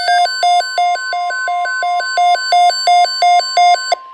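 Emergency alert beeping: rapid beeps alternating between a low and a high pitch, about three pairs a second. A steady alert tone joins underneath about a second in. The beeping stops just before the end.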